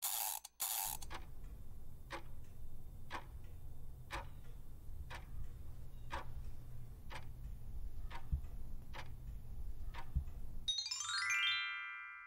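Quiz countdown timer ticking about once a second over a low steady drone, after two short swishes at the start. Near the end a quick rising run of chime tones rings out and fades, signalling the answer reveal.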